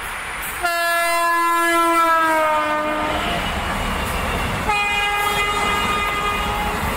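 Train horn blown twice: a long blast whose pitch drops slightly as it goes by, then a second, higher, steady blast about four seconds in. Underneath, the rush and clatter of a train on the track grows from about halfway through.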